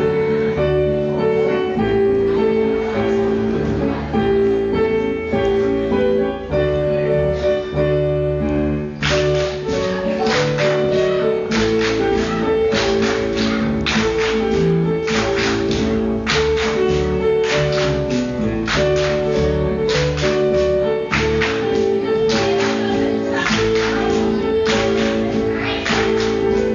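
Danish folk dance music playing with steady held notes. From about nine seconds in, sharp percussive hits come in a steady rhythm in time with the tune.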